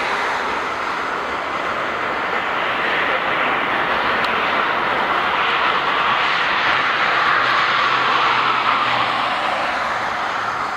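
Twin-engine jet airliner's engines running at high power as it rolls away down the runway: a steady, loud jet noise that eases slightly near the end.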